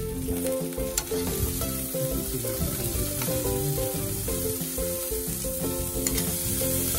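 Racks of ribs and steaks sizzling on a charcoal grill grate, a steady hiss. Two sharp metallic clicks come about a second in and again near the end, as metal tongs touch the grate or meat. Light background music plays underneath.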